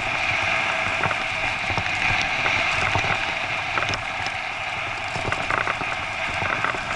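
Mountain bike rolling fast over a rutted grass-and-dirt trail behind a pulling dog: a steady rush of tyre and riding noise, with scattered small rattles and knocks from the bike on the bumps.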